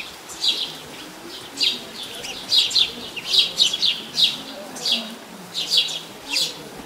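Small birds chirping: short, high chirps repeated every half second or so, often in quick runs of two or three.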